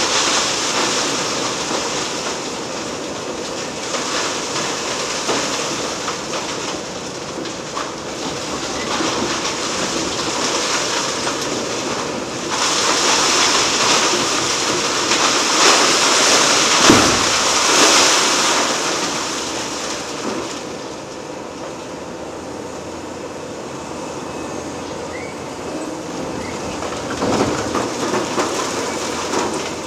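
Liebherr R 980 long-front demolition excavator breaking up an office building: a continuous crunching and clattering of concrete and rubble, louder through the middle, with one heavy thud a little past halfway.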